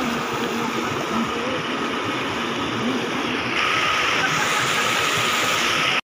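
Rushing water of a rocky stream tumbling over boulders below a waterfall: a steady rush that grows louder and brighter about three and a half seconds in.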